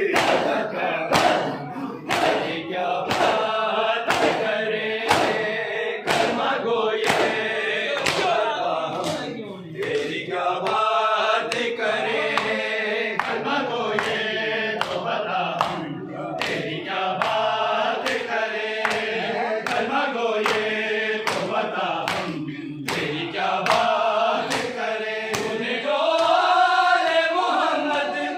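A group of men chanting a noha, a Shia lament, in unison, over a regular beat of open-hand chest beating (matam).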